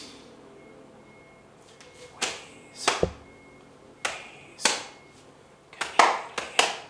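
A series of about eight short swishing whooshes, each swelling and then cutting off. A low thump comes about three seconds in.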